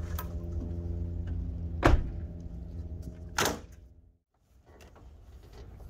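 A gas engine running steadily, with two loud thumps about two and three and a half seconds in, then fading out about four seconds in.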